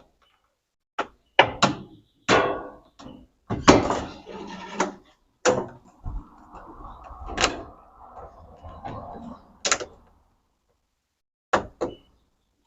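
Plastic parts of a top-loading washing machine (Electrolux LAC13) knocked and shifted by hand as its tub cover and tie rods are taken off: a string of sharp knocks, with a softer scraping rattle in the middle.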